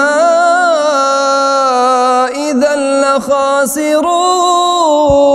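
A man reciting the Quran in the melodic chanted style (tajwid), drawing out long held notes with small ornamental turns. The voice wavers briefly a little past halfway, then settles on one long steady note.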